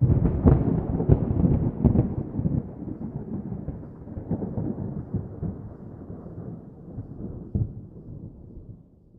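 A low rolling rumble that starts suddenly, with sharp cracks in its first two seconds and a few more later, then dies away near the end.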